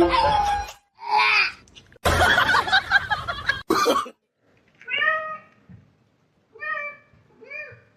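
Domestic cat meowing three times in the second half, short calls that rise and fall in pitch, after a brief stretch of mixed noise.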